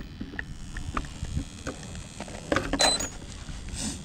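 Scattered light clicks and knocks over a low rumble of wind on the microphone, with a louder rustling scrape a little before three seconds in.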